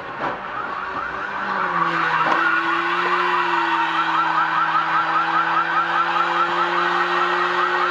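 A fast-pulsing electronic siren or alarm warbling several times a second, starting about a second and a half in, over a steady vehicle hum, with a couple of short knocks early on.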